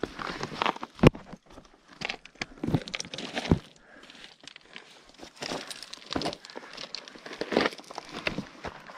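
Hikers' footsteps on a mountain path: irregular steps, uneven in loudness.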